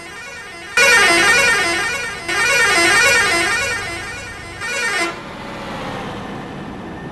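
Bus musical horn playing a loud warbling, repeating melody. It starts about a second in, dips briefly and goes on, then cuts off after about four seconds, leaving steady road noise.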